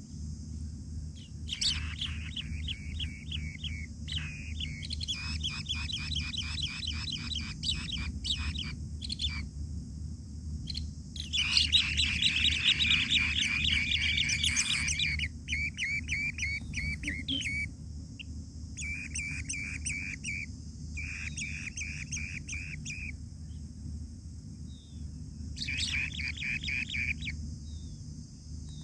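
Asian bee-eater nestlings calling: repeated bursts of fast, trilling chirps, several seconds apart, the longest and loudest burst a little before the middle. A steady low hum runs underneath.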